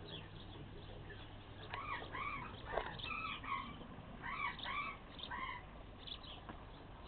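An animal calling in short, arched calls: two runs of about four calls each, a little over a second apart, over low steady background noise.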